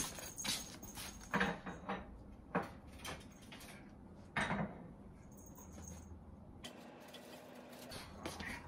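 Slippered footsteps shuffling and scuffing on a wooden kitchen floor close by, with a dozen or so irregular light knocks and scrapes.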